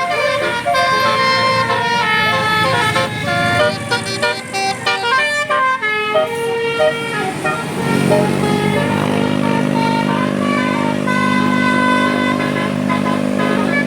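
Bus 'telolet basuri' musical horn playing a melody of quick-changing notes. About eight seconds in, a sustained low chord joins underneath the tune.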